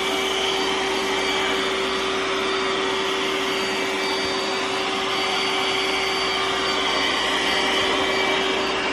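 iRobot Roomba s9+ Clean Base self-emptying: a loud, steady suction rush with a constant hum, as the base draws the rice the robot picked up out of its bin.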